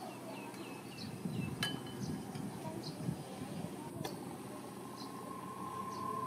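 Quiet handling sounds of a metal spoon hollowing out tomatoes and of tomatoes being set on aluminium foil, with two light clinks. Faint bird chirps are in the background.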